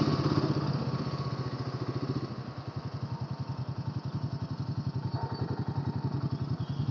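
Royal Enfield Himalayan 450's single-cylinder engine idling, a steady rapid pulse of firing strokes.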